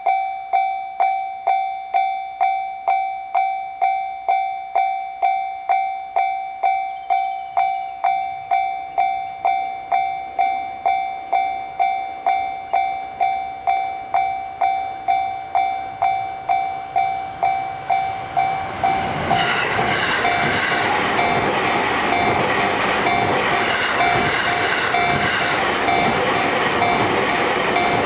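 Japanese level-crossing warning bell ringing its steady 'kan kan' at about two strikes a second. About two-thirds of the way through, a JR Sobu Line train starts passing over the crossing, and its loud running noise covers the still-ringing bell.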